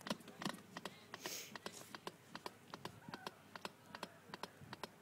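CPR training manikin clicking under rapid chest compressions: faint, quick, regular clicks, several a second, as the chest is pressed down and released.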